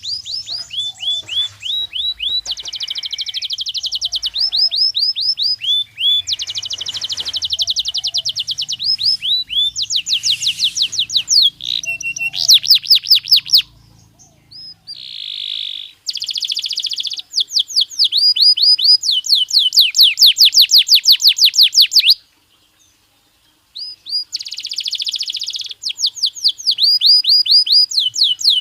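Belgian canary singing a long, loud song of fast repeated notes and trills, each run of identical syllables lasting a second or two before switching to the next. The song breaks off for about a second and a half near the end, then resumes.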